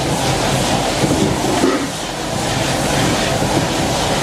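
High-flame gas wok burner running with a steady rushing roar while fish and vegetables sizzle in the wok as they are stir-fried.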